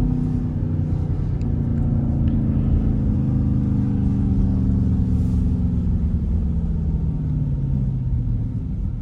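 Jeep Grand Cherokee SRT8's straight-piped V8 exhaust rumbling under way, its pitch falling slowly and steadily as the revs drop off.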